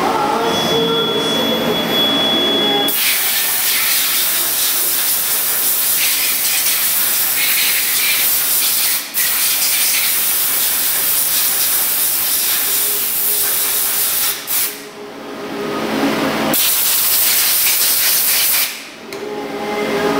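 CNC lathe running with a steady hum for about three seconds, then a loud, steady hiss of a compressed-air blow gun blowing chips and coolant off the machined steel part in the chuck, cut off briefly about nine seconds in, again around fifteen seconds, and near the end.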